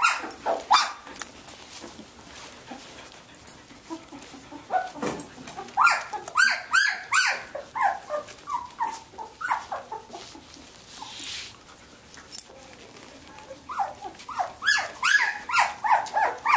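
Samoyed puppies, 17 days old, squeaking and whining in many short high calls, in a busy cluster a few seconds in and again near the end.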